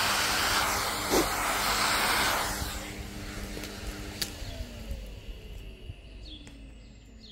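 Vacuum cleaner sucking up drilling dust through its nozzle with a loud hiss, then switched off about two and a half seconds in, its motor winding down with a slowly falling whine.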